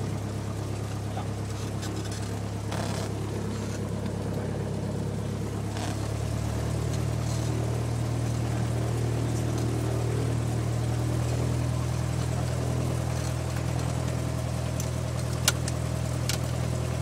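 Cessna 172 floatplane's piston engine running steadily at low power, heard from inside the cabin while taxiing on the water. About six seconds in its note shifts and gets slightly louder, and a single sharp click sounds near the end.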